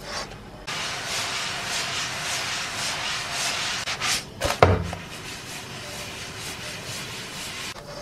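A pancake frying and sliding around in a frying pan as the pan is shaken back and forth over a gas burner, a grainy scraping hiss. The pan knocks sharply twice about four and a half seconds in, then the frying goes on more quietly.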